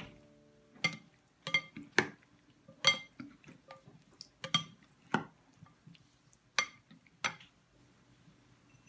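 Wooden salad servers knocking against a ceramic bowl while a creamy salad is tossed. There are about a dozen sharp clinks, some in quick pairs, each ringing briefly, and they stop a little after seven seconds in.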